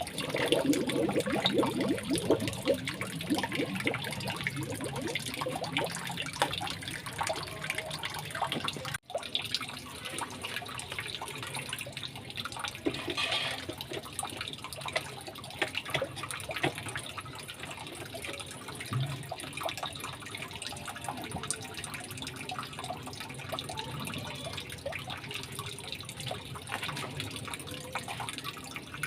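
Resun Penguin 4500 submersible pond pump running in water, its flow churning and splashing, with a brief break about nine seconds in. This is the pump's test run after its broken motor cable was repaired.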